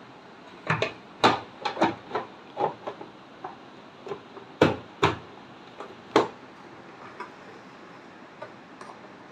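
Irregular sharp clicks and knocks of hand tools and parts being handled and set down, about a dozen in the first six seconds. The loudest two come about four and a half and five seconds in, and only a few faint ticks follow.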